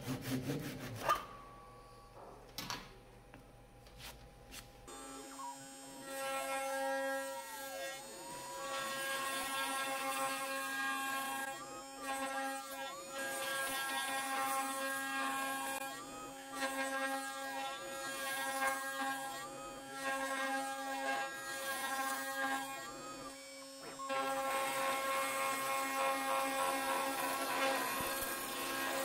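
A CNC router spindle whines steadily while its end mill cuts around the edge of a yew round, with a pitch that wavers up and down about once a second as it cuts. In the first few seconds, before the spindle starts, there are only a few light knocks of the workpiece being handled.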